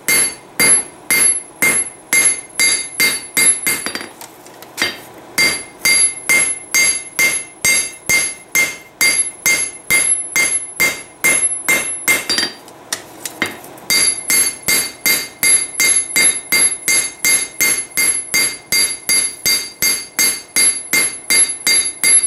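Blacksmith's hand hammer striking red-hot steel on an anvil in steady blows, about three a second, each blow ringing high off the anvil, with two short breaks, about four seconds in and again a little past the middle. The smith is drawing a taper on a knife blade forged from a Heller farrier's rasp.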